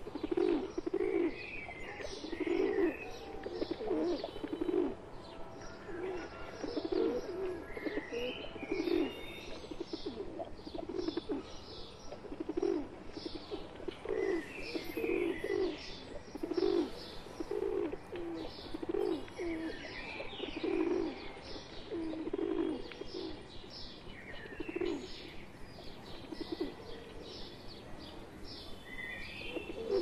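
A flock of rock pigeons cooing, many low coos overlapping without a break. Higher, short chirping calls of other birds come in every five or six seconds.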